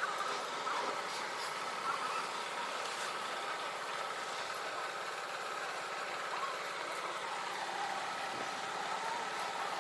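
Steady mechanical drone of an engine running.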